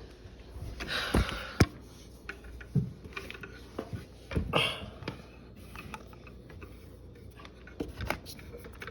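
Handling noise: a few sharp clicks and knocks with short bouts of rustling, as a vacuum cleaner's power cord is plugged into a wall outlet and a chair is moved aside. The vacuum motor is not running.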